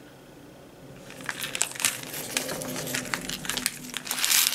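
A small plastic packet crinkling as it is handled, starting about a second in, with a run of light crackles.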